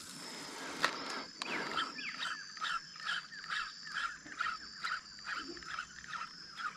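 A bird calling over and over, short rising notes about twice a second, over a steady high-pitched whine. A single sharp knock about a second in.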